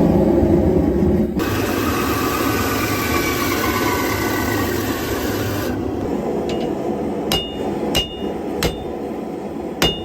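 A steady rushing noise with a faint tone sliding down in pitch, then a hammer striking hot steel on an anvil, blows about every 0.6 s in the second half, each with a short metallic ring.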